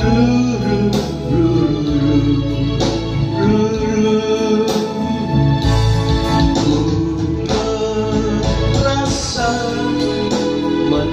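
Yamaha electronic keyboard playing the instrumental interlude of a pop ballad: a sustained organ-like melody line over the arranger's bass and rhythm backing.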